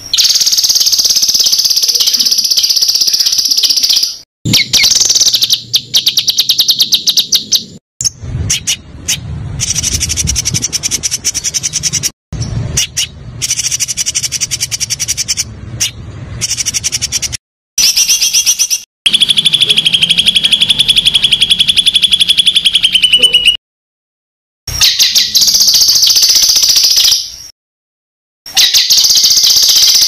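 Songbird song made of fast, rattling trills and rapidly repeated high notes. It comes as a string of spliced recordings that cut off abruptly several times into brief silences.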